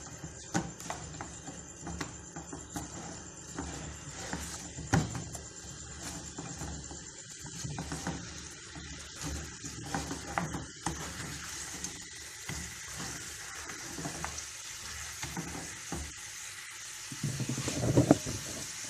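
Sauce-coated chicken wings sizzling in a frying pan while a silicone spatula stirs and tosses them, with scattered knocks and scrapes of the spatula against the pan. The stirring gets louder near the end.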